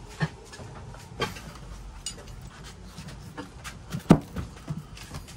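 A screwdriver prying a tractor tire's bead over the lip of a steel wheel rim, a few inches at a time. Scattered clicks and knocks of the tool against the rim, the loudest about four seconds in.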